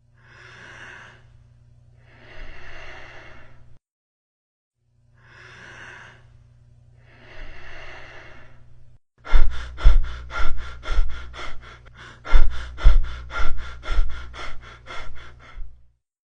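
Recorded lung sounds: two slow breaths, each a soft in-breath and out-breath over a low hum. About nine seconds in comes a louder stretch of rapid clicking, roughly four clicks a second, with a steady high tone through it.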